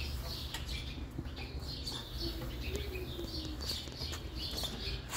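Small birds chirping in many short high calls, over a low steady hum.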